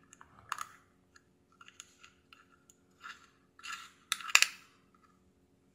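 A small metal tool scraping and clicking against a jar of solder paste as paste is scooped out: a handful of short, light scrapes, the loudest pair about four seconds in.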